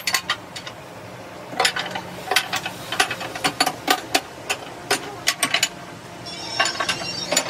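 Irregular sharp metallic clanks and clicks, starting about one and a half seconds in and coming several a second at times, as metal tools and the swing-bolt clamps on the lid of a steam curing vessel are handled, over a faint low hum.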